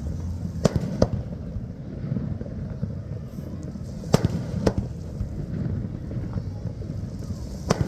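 Fireworks shells going off over open water: five sharp bangs, two quick pairs and then a single one, over a steady low background din.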